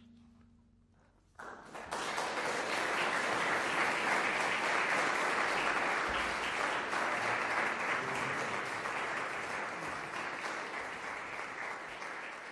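A last held low note fades out, then an audience applauds: the clapping starts suddenly about a second and a half in and holds, tapering off near the end.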